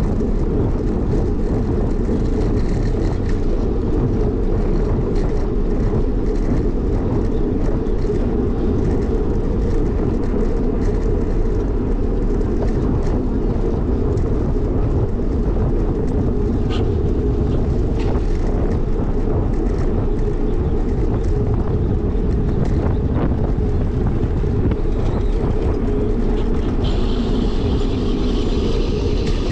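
Steady low rumble of wind buffeting the microphone of a camera riding on a moving bicycle, with a few light knocks. A brief hiss comes in near the end.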